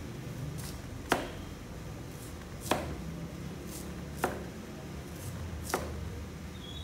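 Cleaver slicing a carrot on a plastic cutting board: four sharp knocks of the blade on the board, about one and a half seconds apart, with fainter crisp ticks in between.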